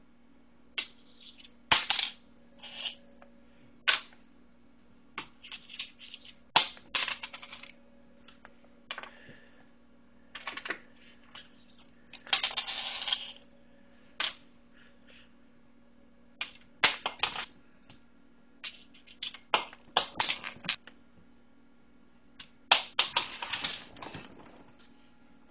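A bottle cap batted around by a cat, clattering and clinking with a ringing tone. It comes in repeated bursts a few seconds apart, two of them longer skittering runs.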